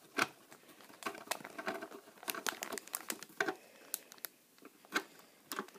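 Screwdriver turning a tight screw in a model car's display base plate: scattered small clicks and scrapes of the tip in the screw head, with light handling of the plastic base.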